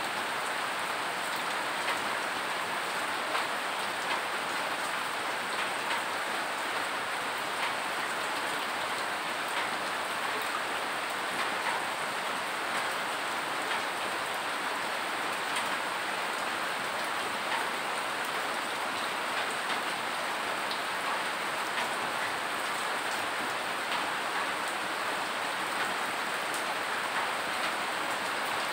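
Steady rain falling on a wet concrete yard, a constant even hiss with scattered single drop hits standing out.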